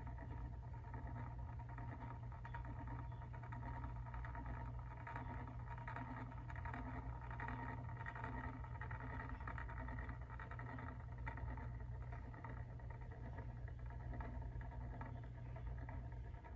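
Small electric motor of a rotating display turntable running steadily, a low hum with a soft pulse repeating a little faster than once a second.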